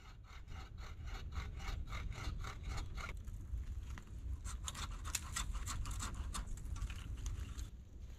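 Hand saw cutting wood overhead in quick, even strokes, about four or five a second; the strokes pause briefly about three seconds in, resume sharper, and stop shortly before the end.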